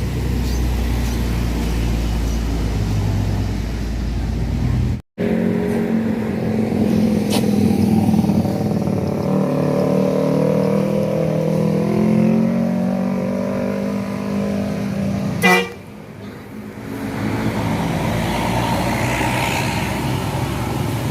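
Bus telolet horn, a Basuri multi-tone musical air horn, playing a tune of several changing tones for about ten seconds. Before it there is a low engine rumble, and a brief gap about five seconds in. A sharp click ends the tune.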